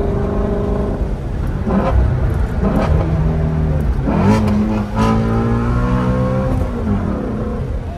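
Ford Mustang Shelby GT350's 5.2-litre flat-plane-crank V8, heard from inside the cabin, accelerating through the gears of its manual gearbox. The engine note climbs in pitch several times, each climb broken off by a gear change, then drops near the end. The exhaust has an X-pipe and the resonator deleted.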